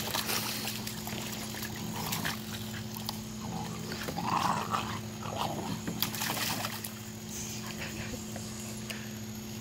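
Puppies splashing in a plastic kiddie pool, water sloshing, with a brief puppy vocal sound about four seconds in.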